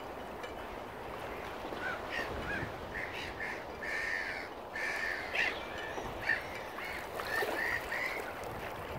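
Waterbirds calling: a run of short, harsh calls from about two seconds in until near the end, over a steady background hiss.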